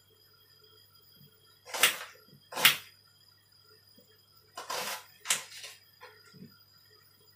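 Kitchen knife chopping through a red onion onto a cutting board: four sharp chops, two about two seconds in and two more about five seconds in.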